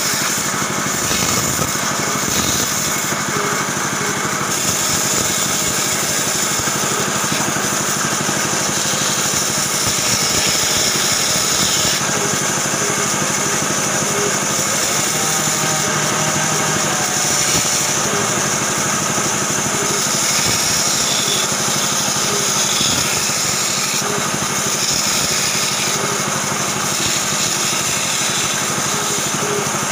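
Band saw running steadily, its blade cutting through small blocks of wood.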